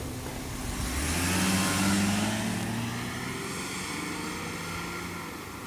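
A car engine accelerating as the sedan drives by, with tyre hiss; it swells about a second or two in and then fades as the car pulls away.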